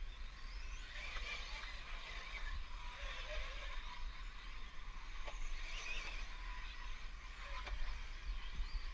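1/10-scale 4WD radio-controlled buggies racing on a dirt track: motors whining up and down with throttle, along with tyre noise and a few light knocks from the cars landing or hitting the track edges.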